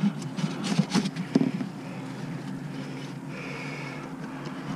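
Handling noise from a mesh fish weigh bag being opened and rummaged over a plastic tub, with a few sharp clicks and knocks in the first second or so, then a steady low rustle.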